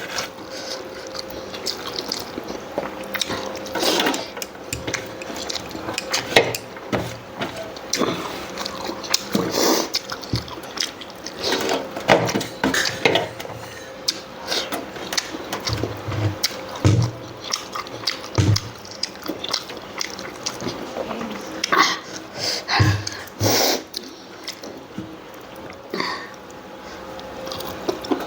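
Close-miked eating sounds: wet chewing and lip smacks on mouthfuls of goat lung curry and rice, as irregular smacks and clicks throughout. A faint steady hum runs underneath.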